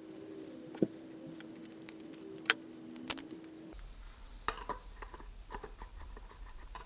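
Light clicks and clinks over a steady hum; a little over halfway through the hum cuts off suddenly, leaving a low rumble.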